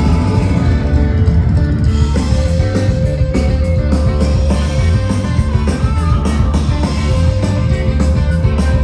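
A live psychedelic rock band playing loudly: guitars over heavy bass and a driving drum beat, with a long held guitar note through much of it.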